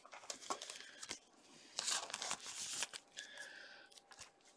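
Quiet rustling and crinkling of a trading card in a clear plastic sleeve being handled, with light clicks and a louder stretch of plastic rustle about two seconds in.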